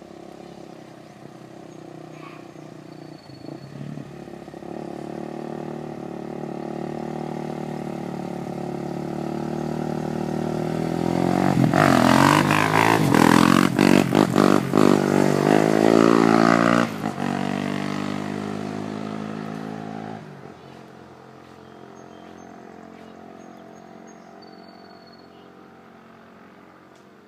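A motor vehicle's engine approaching, passing close by and moving away, loudest for several seconds near the middle and fading after it goes past. A rapid clicking is heard along with the engine as it passes closest.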